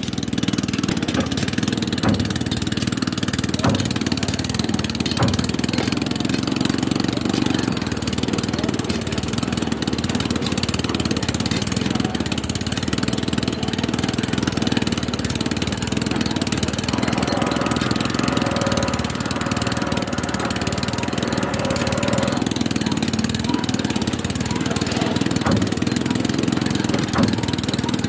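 Small engine of a portable rail-drilling machine running steadily. For about five seconds past the middle a higher steady tone joins the hum.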